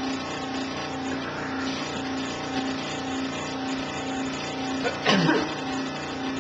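Benchtop scroll saw running with a steady hum that swells about twice a second. About five seconds in there is one short, loud squeak.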